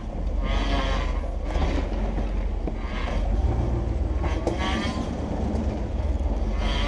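Jeep Wrangler TJ crawling slowly over a rocky trail: a steady low engine-and-drivetrain rumble, with brief higher-pitched sounds roughly every second as the rig works over the rocks.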